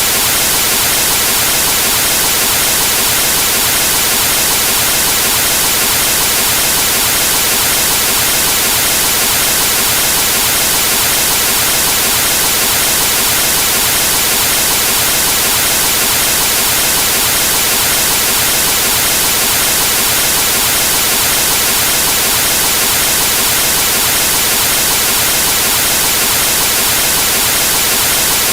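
Television static from a set tuned to a dead cable channel: a loud, steady hiss of white noise that does not change.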